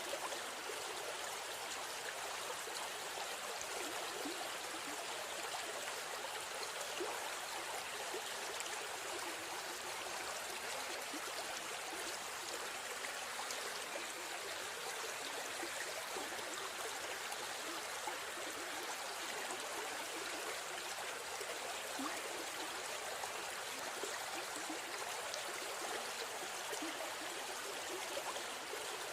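River stream flowing, a steady babble of running water.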